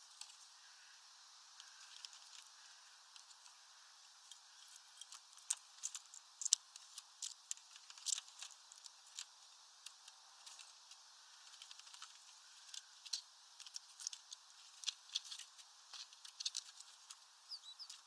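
Great tit bathing in a shallow plastic tub of water: faint, quick, irregular splashing and water droplets pattering, sparse at first and coming in busy flurries from about five seconds in.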